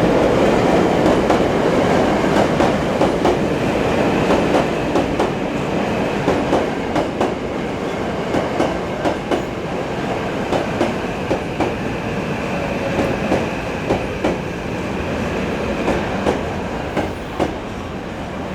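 Electric commuter train running along the platform, its wheels clacking over rail joints about twice a second under a steady rumble that slowly fades.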